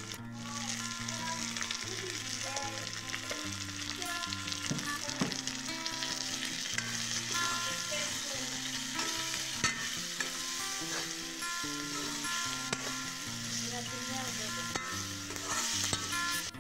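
Smoked beef and onion sizzling in oil in a wok while a metal spatula stirs them, with occasional sharp clicks and scrapes of the spatula against the pan.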